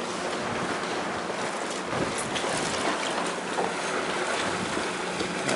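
Wind, freshened to about 12 knots, buffeting the microphone on a sailing race start boat, with water washing against the hull: a steady rushing noise.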